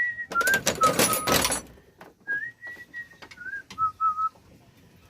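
A person whistling a slow tune, held notes with small slides up and down. Early on, a dense burst of clattering clicks and knocks sounds over it, the loudest part.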